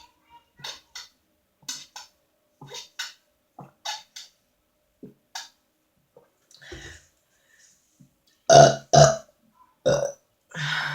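Close-up chewing with sharp crunches, a couple a second, then loud burps: two close together a little past halfway and two more near the end, the last drawn out.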